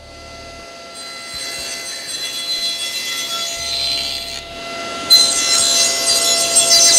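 Table saw running with a steady whine while its blade trims the edges of a slotted mahogany trivet. A first cut runs from about a second in, and a louder second cut starts about five seconds in.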